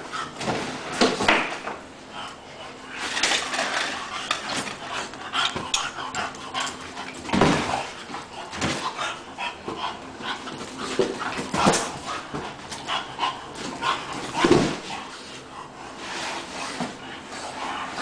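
Bulldog whimpering and barking in short bursts while playing with an inflatable beach ball, the loudest bursts about seven, twelve and fourteen seconds in.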